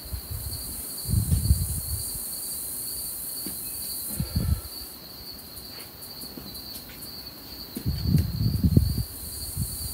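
Crickets trilling steadily in a high, unbroken chorus. Low gusts of wind rumble on the microphone about a second in, briefly around the middle, and again near the end.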